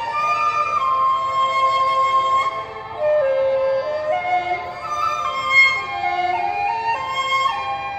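Chinese bamboo flute (dizi) in F playing a slow melody of held notes that step up and down, over a recorded accompaniment with lower sustained notes.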